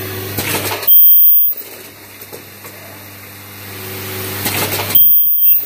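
Ultrasonic plastic welder on an automatic assembly machine firing twice, about four seconds apart. Each weld is a loud, high-pitched squeal lasting about half a second, with a short hiss just before it. A steady low machine hum runs underneath.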